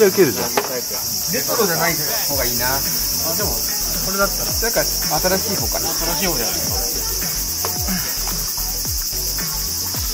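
Steady, high-pitched chorus of insects, with indistinct lower sounds that shift up and down in pitch beneath it.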